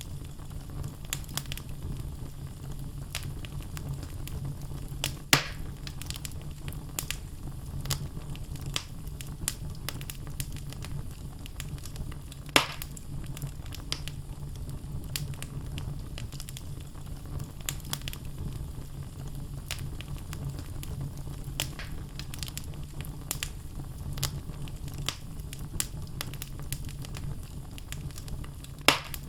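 Wood logs burning in a fireplace, crackling steadily over a low rumble of flame, with frequent small snaps and three louder pops: about five seconds in, about twelve seconds in, and near the end.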